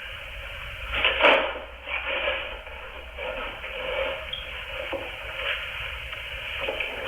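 Tinny, narrow-sounding security-camera audio of a room, with rubbing and knocking handling noises, the loudest about a second in.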